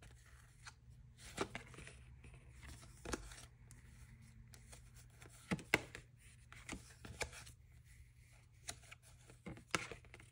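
Paper calendar pages being turned and handled, with irregular soft rustles and light taps.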